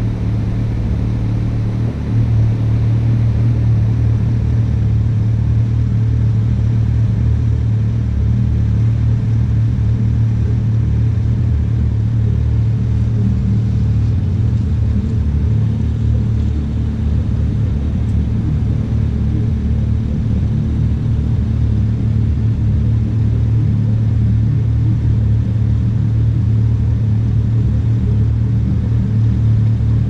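Vehicle engine idling with a steady low hum, rising a little in level about two seconds in.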